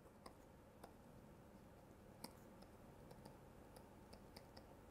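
Near silence with faint, scattered light clicks of a stylus tapping a writing tablet as words are handwritten.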